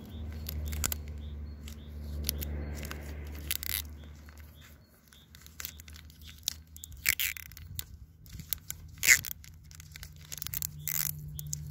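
Plastic sheet crinkling and crackling in irregular short snaps as it is wrapped around a branch and bound with tape pulled off a roll; the sharpest crackle comes about nine seconds in.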